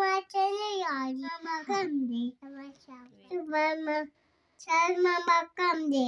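A toddler babbling in a high, sing-song voice, in short phrases with a longer pause about four seconds in.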